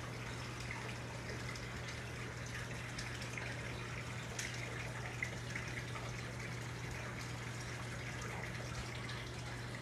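Steady trickle of running water with a constant low hum beneath it, and a few faint small ticks.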